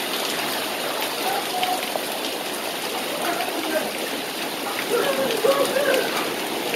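Heavy downpour of rain mixed with hail, a steady hiss with water gushing off the roof edge. Faint voices rise about five seconds in.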